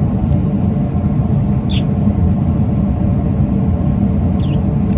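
Steady low rumble of background noise, with two brief high chirps, about two seconds and four and a half seconds in.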